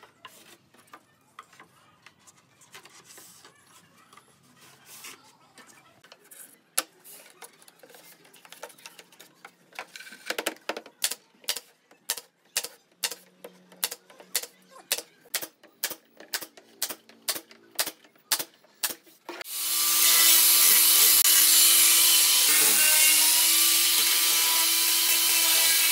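Pneumatic stapler firing repeatedly into pine boards, a sharp snap about two to three times a second. About two-thirds of the way in, a loud power tool starts abruptly and runs steadily, with a hum held under it.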